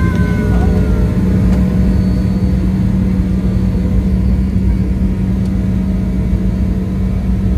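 Steady low rumble of a vehicle in motion, with a constant low hum and no revving.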